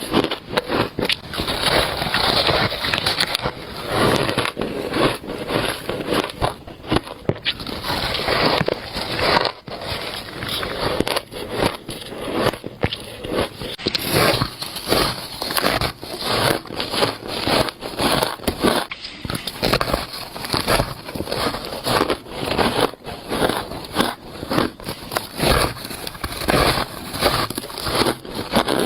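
Shaved ice being bitten and chewed close to the microphone: a continuous run of squeaky, crackly crunches.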